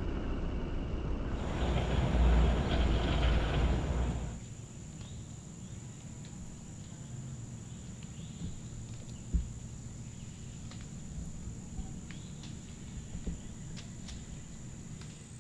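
Woodland ambience: a steady high-pitched insect buzz with scattered faint bird chirps and a single sharp knock about nine seconds in. For the first four seconds a louder low rushing noise covers it, then drops away.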